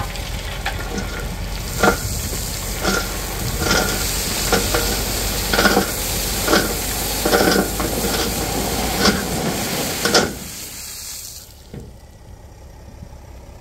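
A load of gravel slides and pours out of a raised dump-truck tipper body: a steady rushing hiss with sharp knocks about once a second. The truck's diesel engine runs underneath. The pour dies away about eleven seconds in.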